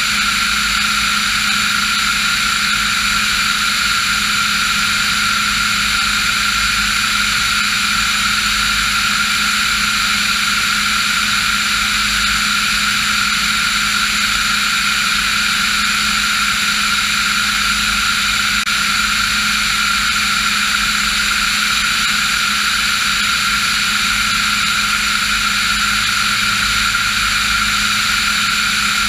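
Cabin noise of a Diamond DA40 NG light aircraft: its Austro AE300 turbo-diesel engine and propeller running in a steady, unchanging drone, heard from inside the cockpit.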